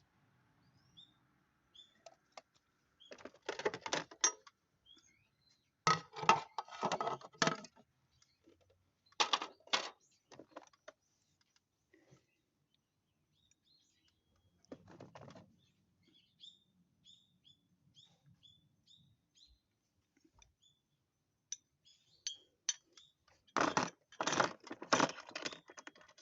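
Metal tools and small parts clinking and rattling in five short bursts, as in hand work on an engine, with small birds chirping faintly between the bursts.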